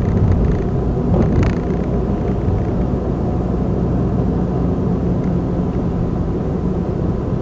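Car cabin noise while driving in city traffic: a steady low rumble of engine and tyres heard from inside the moving car.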